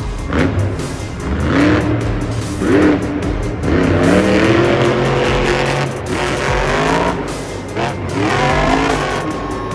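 Monster truck engine revving in repeated surges, its pitch climbing and falling several times, with music playing underneath.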